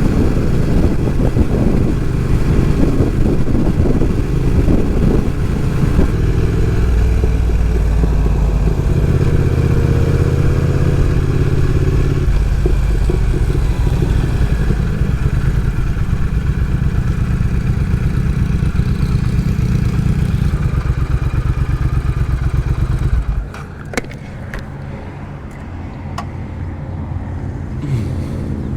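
Motorcycle engine and wind noise while riding, changing pitch with speed. About 23 seconds in it drops suddenly to a much quieter steady idle, with a few short clicks.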